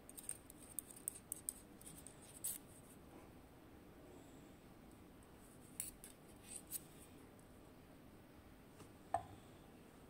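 Steel tweezers clicking and scraping against the small steel pins inside an Assa 700 lock cylinder housing as the pins are taken out. The sound is a scatter of faint, sharp metallic ticks, with one sharper click that rings briefly near the end.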